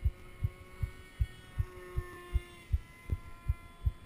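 Steady low thumping beat, about two and a half thumps a second, over the faint whine of a small electric RC plane's motor whose pitch drifts slightly.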